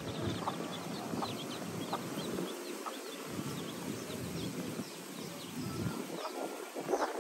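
Feral chicken chicks peeping over and over in short high chirps, with a few brief low clucks from the mother hen, over a low rustling background.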